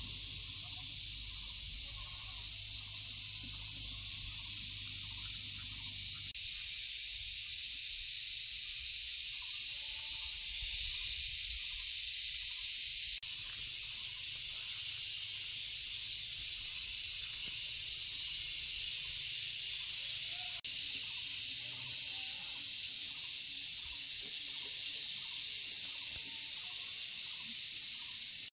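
Steady, high-pitched, unbroken chorus of insects. A low rumble sits under it for the first six seconds.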